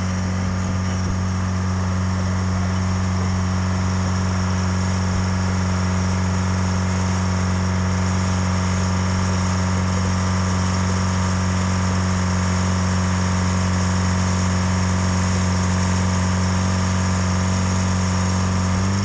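Pettibone Speed Swing's diesel engine running close by at a steady, even pitch as the machine pushes its bucket through deep snow along the rail.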